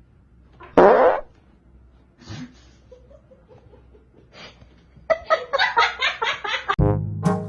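A loud fart sound effect about a second in. Near the end comes a quick run of laughter, followed right away by a comic brass tune.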